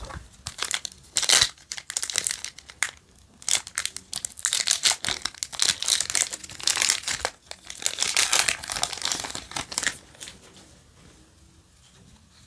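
Foil wrapper of a Yu-Gi-Oh! booster pack crinkling and tearing in irregular bursts as it is handled and opened, dying down near the end once the cards are out.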